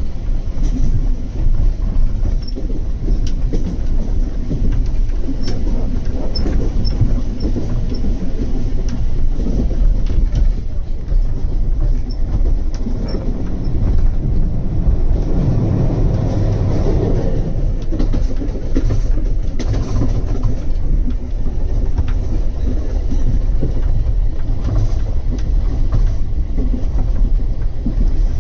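Steady low rumble of a moving vehicle, swelling louder for a few seconds about halfway through.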